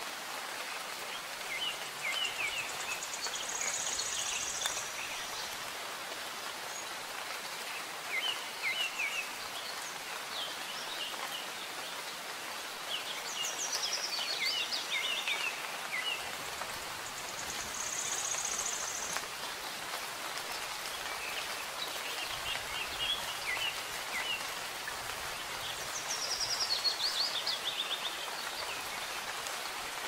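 Steady soft rain falling, with small songbirds chirping over it in short bouts every few seconds, some bouts ending in a high, rapid trill.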